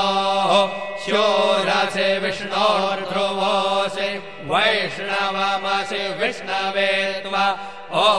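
Hindu mantra chanting: a voice intoning gliding, drawn-out phrases over a steady low drone.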